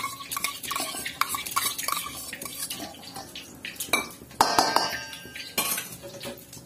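Metal spoon clinking and scraping against stainless steel bowls as curd is scooped onto raw chicken: an irregular run of small clinks and taps, some ringing briefly, with a louder scraping clatter about four and a half seconds in.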